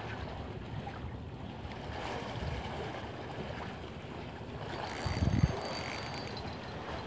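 Wind buffeting the microphone over choppy, foaming sea water, a steady rushing noise with a short louder low rumble about five seconds in.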